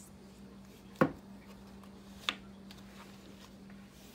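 Two taps on a hardcover book's cover: a louder tap about a second in, then a sharper, higher click a little over a second later, over a faint steady hum.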